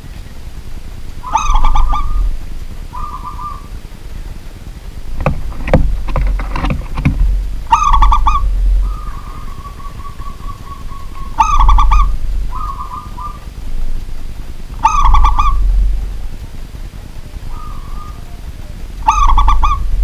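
Zebra dove (perkutut) cooing its rhythmic song about five times, each phrase a burst of quick coos followed by a shorter note, which its keeper takes as the sign of a bold bird. A brief run of knocks about five seconds in.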